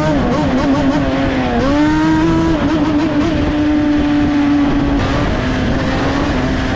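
A high-revving motorcycle or ATV engine held at speed. Its pitch climbs at the start and surges again about one and a half seconds in, then holds nearly steady, easing off a little near the end.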